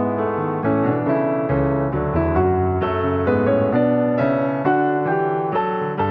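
Background piano music, a steady flow of notes with a regular beat.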